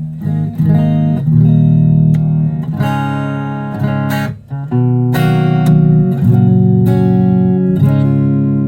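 Guitar chords strummed and left ringing, changing every second or so.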